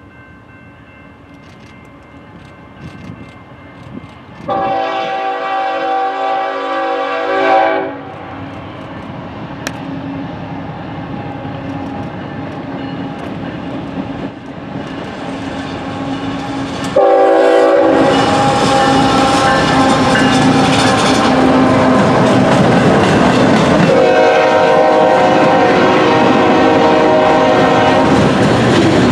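GE ES44AH diesel locomotive's horn sounding as the freight train approaches. The first blast comes about four seconds in and lasts about three seconds. From about seventeen seconds the horn sounds again in longer blasts as the locomotives pass close by, loud over the engine. Near the end, loaded freight cars roll past with clacking wheels.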